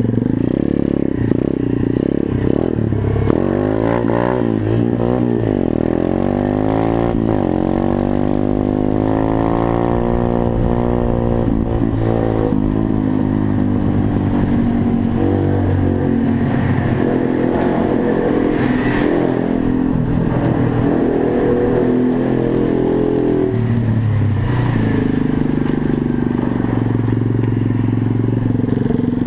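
A 125cc pit bike engine running under way, its pitch rising and falling again and again as it revs up and eases off.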